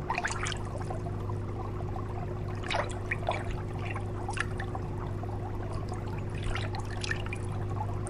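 Water trickling and bubbling, with short bubbly splashes now and then over a steady low hum.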